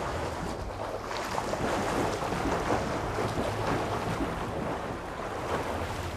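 Steady rushing noise with a faint crackle, rising slightly about a second in and easing off near the end.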